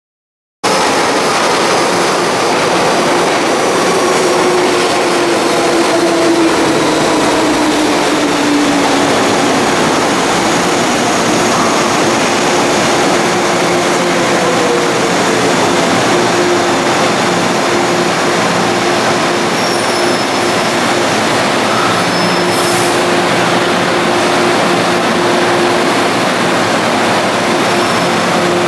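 MTR electric metro train running through a station platform without stopping: a loud steady rumble of wheels and traction motors that starts abruptly about half a second in, with a motor whine that slides down in pitch over the first several seconds.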